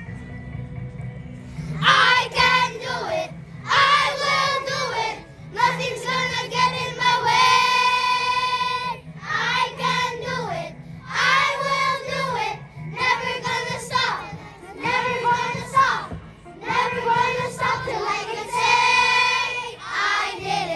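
A group of children singing a song together in unison, starting about two seconds in, in phrases broken by short pauses for breath.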